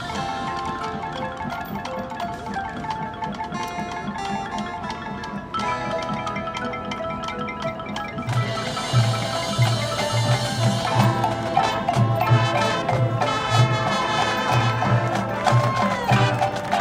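Marching band playing live, with the front ensemble's marimbas and vibraphones prominent over held chords. About eight seconds in the music gets louder and a steady low pulsing beat comes in.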